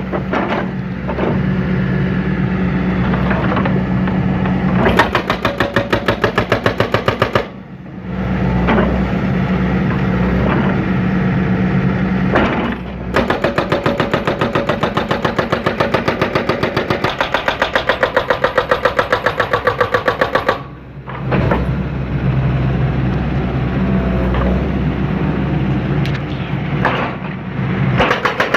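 John Deere 160C excavator's diesel engine running under load while demolishing a concrete silo base. Twice, about five seconds in and again from about thirteen to twenty seconds, a rapid, even pounding of many blows a second rides over the engine.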